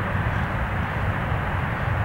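Airbus A320 airliner's jet engines heard from a distance during its landing rollout: a steady, even jet roar with no change in level.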